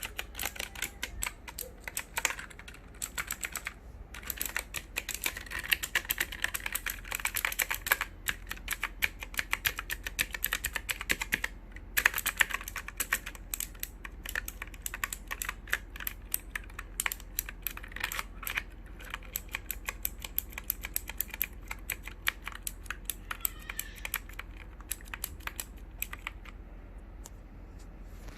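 Typing on a computer keyboard: a fast, uneven stream of key clicks with a few short pauses, stopping near the end.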